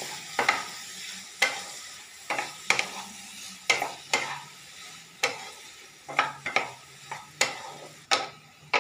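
Spatula scraping and knocking against a kadai as diced ridge gourd is stirred and fried in hot oil, over a steady sizzle. The strokes come unevenly, about every half second to a second.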